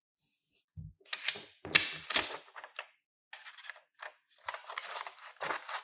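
Scissors snipping through sheets of thin paper in a series of crisp cuts, with paper rustling as the sheets are handled and a soft thud on the table about a second in.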